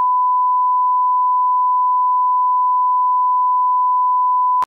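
Bars-and-tone test signal: a steady 1 kHz reference tone at one unbroken pitch, cutting off abruptly near the end.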